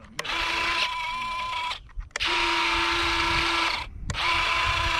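Electric retractable landing gear of an RC jet cycling: three runs of a steady whir, each about a second and a half, starting and stopping abruptly. The gear is sticking.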